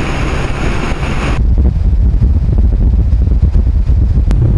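Loud wind and road noise from a BMW K1600 touring motorcycle riding at highway speed. A bright rushing hiss cuts off about a second and a half in, leaving a heavy low wind rumble.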